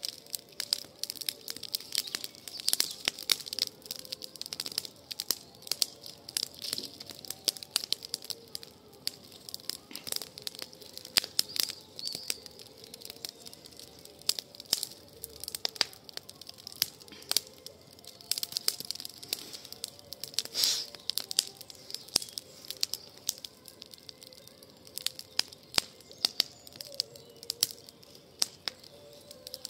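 Campfire of pruned shrub branches burning in a fire bowl, crackling with many irregular sharp pops.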